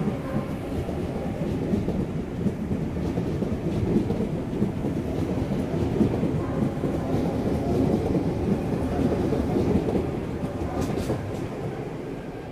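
Waratah electric train pulling out alongside the platform: a steady rumble of wheels and running gear with some clatter, easing off slightly near the end as the last car clears.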